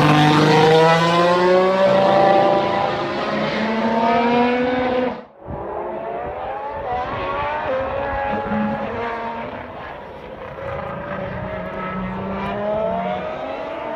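Honda Formula One turbocharged V6 hybrid power unit running on track, its pitch climbing repeatedly as it accelerates through the gears. About five seconds in the sound breaks off abruptly and another pass of the engine follows, somewhat quieter.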